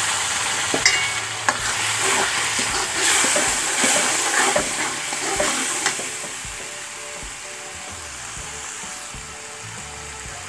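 Ground tomato, ginger, garlic and chilli paste sizzling in hot oil in a kadhai, stirred with a metal spoon that scrapes and knocks against the pan. The sizzle and the spoon strokes are loudest for the first six seconds or so, then die down.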